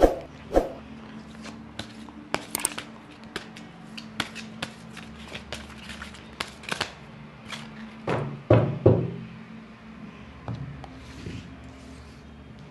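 A deck of tarot cards being shuffled by hand: a run of quick card snaps and flicks. About eight seconds in come two heavier thumps as the cards are set down and spread on the table.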